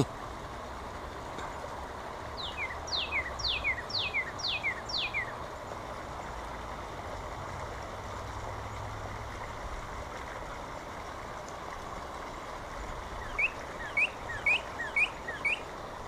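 Northern cardinal song: a run of about six loud whistles, each sliding down in pitch, then near the end a quicker run of about six short rising notes, over a steady low background noise.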